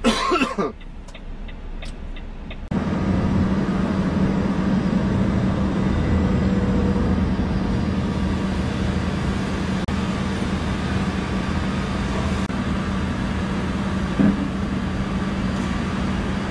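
Steady mechanical hum of a heavy truck, with a constant low tone, starting suddenly about three seconds in.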